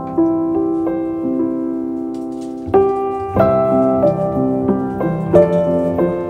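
Background piano music: a slow melody of held notes struck one after another.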